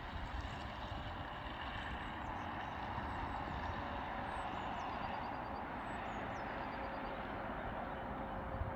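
Road traffic: cars passing with a steady tyre noise, with a few faint bird chirps over it. A faint steady hum sets in about seven seconds in.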